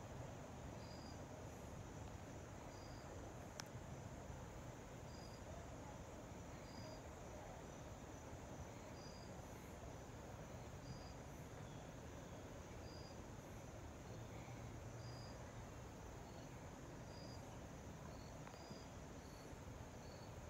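Faint, steady low roar of a Boeing 737-800 jet airliner flying high overhead, heard from the ground. Short high chirps from a small animal repeat every second or two, coming more often near the end, and a single sharp click sounds about three and a half seconds in.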